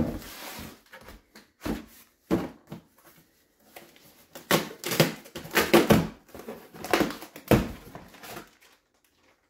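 A cardboard shipping box being handled and opened by hand. A few separate knocks and scrapes come as it is picked up and set on the lap. From about halfway there is a denser run of tearing, scraping and rustling as the flaps and packaging are pulled open.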